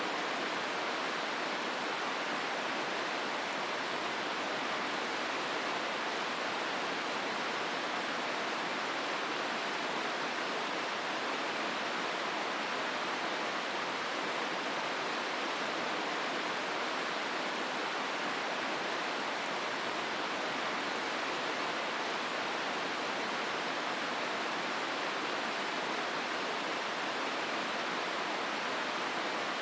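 River water rushing steadily through the rocky gorge of the Hozu River.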